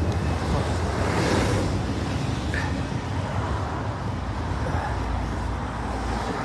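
Steady low rumble of road traffic, swelling briefly about a second in.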